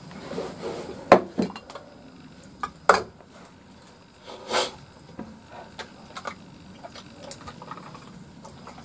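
Spoons and a ladle clinking and scraping against plates and a metal wok during a meal, in scattered sharp clinks, the loudest about one and three seconds in, and a longer scrape about four and a half seconds in.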